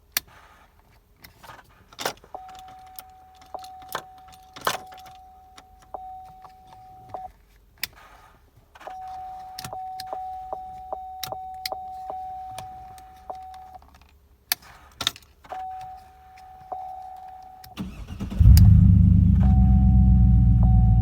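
Keys jangling and clicks while a steady warning chime tone sounds in several stretches. About 18 seconds in, the 2006 Trailblazer SS's 6.0 L V8 cranks briefly, catches and runs steadily: the no-crank fault is cured with the new ignition switch.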